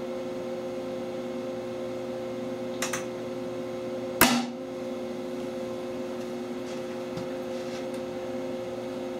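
A steady electrical hum from the HHO test rig runs throughout. A couple of small clicks come near 3 s, then one sharp pop just after 4 s, the loudest sound: HHO mixed with compressed air igniting in the burn tube and driving its piston out. A few faint ticks follow near the end as a metal ruler is set against the tube.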